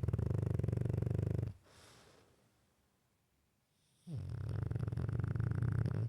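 Dog snoring: two long, fluttering snores, the first ending about a second and a half in and the second starting about four seconds in, with a soft breath between them.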